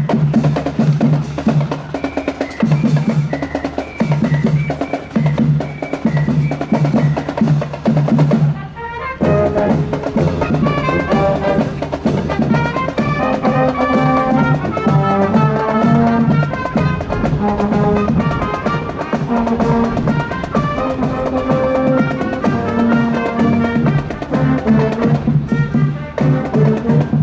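School marching band of brass and percussion playing on parade. A drum-led passage lasts about eight seconds, then after a brief break the full band comes in with the brass melody over the drums.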